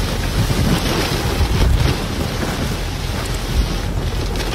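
Strong wind buffeting the microphone in a low, steady rumble, over the rush of storm waves breaking against a seawall.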